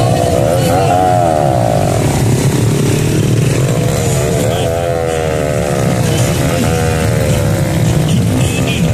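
A group of small motorcycles running together on the road, their engines rising and falling in pitch as the riders speed up and ease off.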